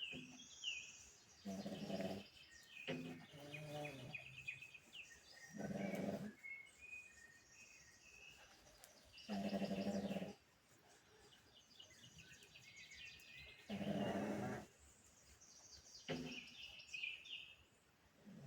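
A pug snoring in its sleep: five loud, rasping snores, each about a second long and a few seconds apart, with birds chirping in the background.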